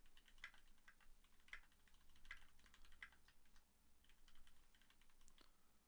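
Faint typing on a computer keyboard: quick runs of key clicks, with a short pause a little past halfway.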